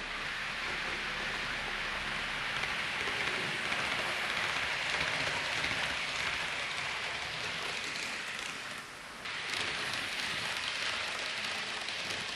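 Model trains running past on the track: a steady rushing noise of wheels on rail and small electric motors, which drops away briefly about nine seconds in.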